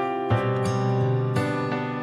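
Soft instrumental background music, with slow notes struck one after another and left to ring.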